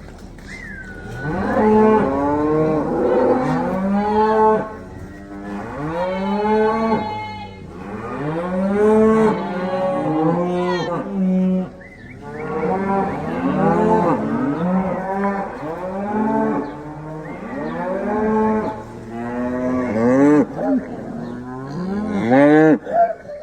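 A group of beef cows and calves mooing and bawling, many calls overlapping one after another, each rising then falling in pitch. A few higher-pitched calls come at the very start.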